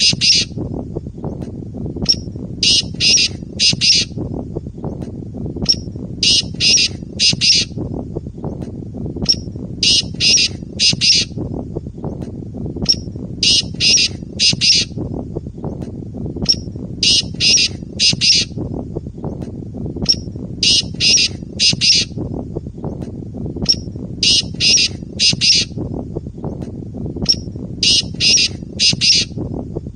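Male black francolin (kala teetar) giving its territorial call, the phrase rendered in Urdu as "Subhan teri qudrat". It is a short note followed by three or four harsh, grating notes, repeated about every three and a half seconds. There is a steady low background noise under it.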